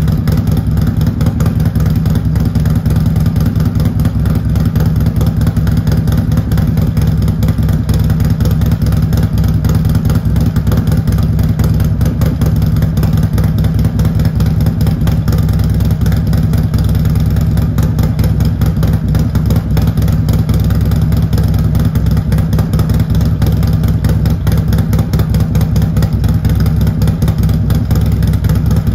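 Harley-Davidson Milwaukee-Eight 114 V-twin, fitted with an S&S 475C cam and a Fuel Moto 2-into-1 exhaust, idling steadily and loudly with no revving.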